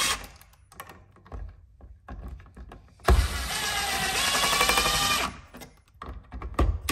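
Cordless impact driver spinning a receptacle's mounting screw into a plastic electrical box: a steady motor whine for about two seconds near the middle, with the tail of a shorter run right at the start. Light clicks of handling fall between the runs.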